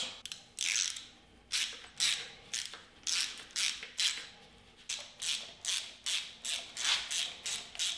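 Hand ratchet wrench clicking in quick repeated strokes while backing out a fuel pump bolt on a Chevy 350 small-block, about two to three strokes a second, a little faster in the second half.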